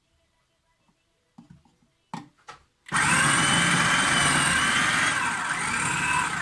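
A few light knocks, then an electric food processor starts and runs, chopping broccoli; its motor whine dips and recovers partway through as the load changes.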